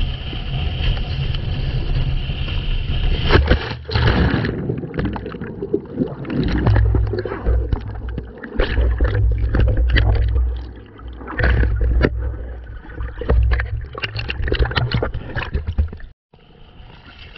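Water rushing past an action camera on a planing windsurf board, then a loud splash about three and a half seconds in as the board and sail go down. The camera then stays underwater: muffled gurgling and bubbling with many sharp knocks over a low rumble. A short dropout comes near the end, followed by quieter water at the surface.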